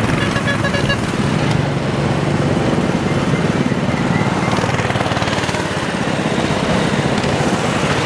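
Many small minibike engines running together as a column of mini choppers rides past, a steady dense engine noise. A short run of high beeps sounds near the start.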